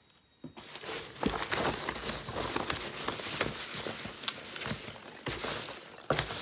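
Crinkling and rustling of candy packaging being handled, starting about half a second in as an irregular run of crackles.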